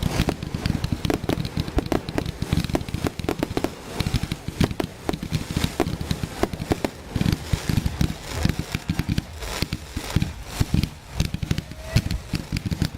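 Fireworks exploding: a dense, irregular run of bangs and crackles, several a second, with deeper booms among them.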